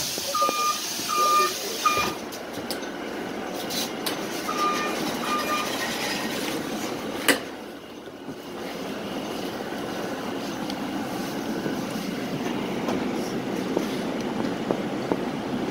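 Inside a city bus, a 2020 Nova Bus LFS: two sets of three short electronic beeps in the first few seconds and a sharp knock about seven seconds in. After that the bus's steady engine and road noise builds as it pulls away and drives on.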